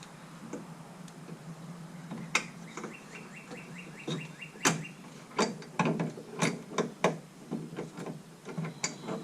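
Ratchet wrench clicking rapidly for about two seconds as a bolt is turned inside a car door, followed by scattered metallic clicks and knocks of tools and parts.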